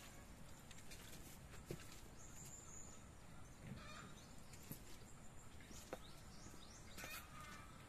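Near silence outdoors: a few soft rustles and scrapes of dry mulch and soil being handled, about four and seven seconds in, with a brief faint high bird call.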